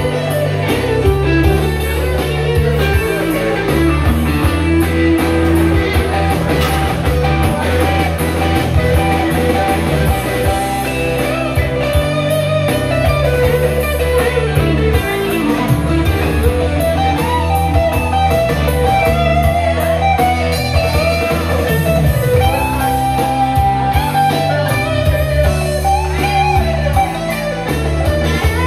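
Live electric guitar music: a hollow-body electric guitar played through an amp, its melody wandering over a steady bass line of held low notes.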